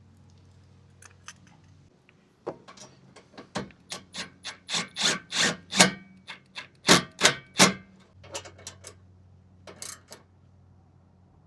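Hand ratchet tightening a mounting bolt: a run of sharp rasping clicks, about three or four strokes a second, starting about two and a half seconds in and stopping near eight seconds, followed by a few lighter clicks.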